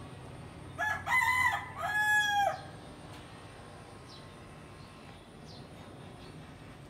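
A loud animal call about a second in, in two parts lasting under two seconds, the second part a held note that drops at the end.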